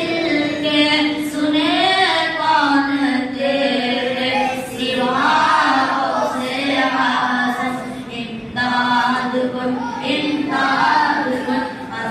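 A boy singing an Urdu devotional manqabat to Ghaus-e-Azam without instruments, in long held, ornamented lines.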